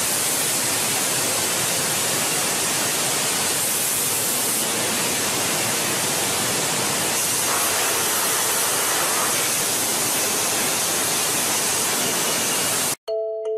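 Steady rushing hiss of air from a glass bottle forming line, even and unbroken, with no rhythm or clatter standing out. It cuts off abruptly near the end.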